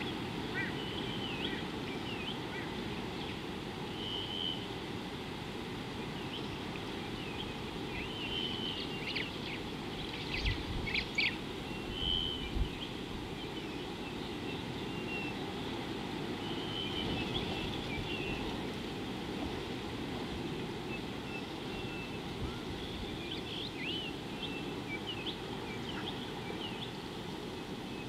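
Wild birds chirping and whistling with short, scattered calls over a steady low outdoor rumble, with a few short low thumps near the middle.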